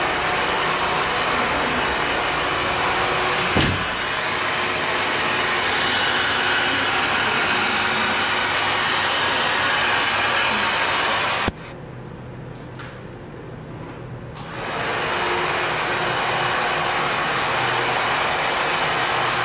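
Handheld hair dryer blowing with a steady rushing hiss. It cuts off abruptly about eleven and a half seconds in and starts again about three seconds later. There is a single sharp click near the four-second mark.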